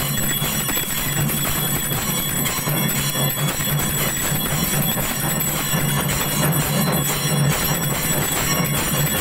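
Puja bells clanging together in a continuous metallic din, with a steady low hum underneath, as the lamp is waved in aarti.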